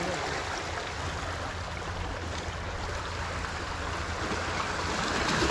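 Steady rushing noise of sea water washing along a rocky shore, with a faint steady low hum underneath.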